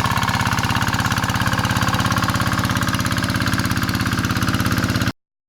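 Single-cylinder Kubota diesel engine of a hand tractor running steadily with a fast, even beat, then cutting off abruptly about five seconds in.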